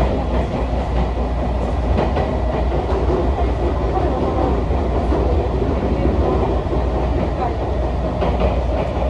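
JR Kansai Main Line train running along the track, heard from inside the carriage: a steady rumble of wheels on rail with a few faint clicks.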